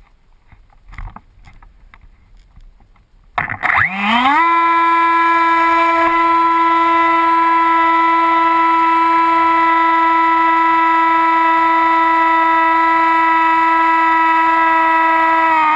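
Electric motor and propeller of an AXN Floater Jet RC plane spinning up: about three and a half seconds in, a whine rises quickly in pitch and then holds steady and loud, sagging slightly at the very end. Before it come only faint scattered knocks and rustling.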